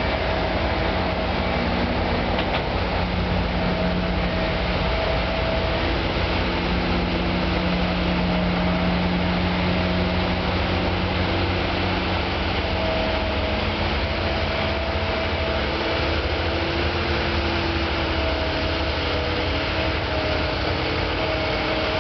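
Heavy road-construction machinery running steadily: a continuous engine rumble with faint whining tones that come and go.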